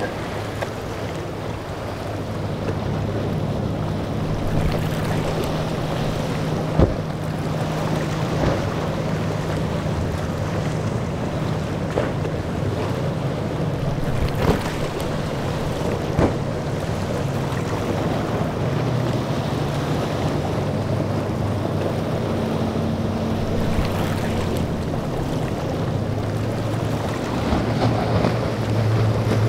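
Boat engines droning as boats run through rough inlet water, with waves and wake splashing and wind buffeting the microphone. The drone grows louder near the end.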